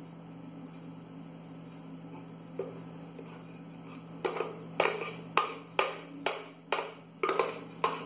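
A steady low hum, then from about four seconds in, sharp knocks on a blender jar about twice a second, shaking the last chocolate cake batter out into a cake tin.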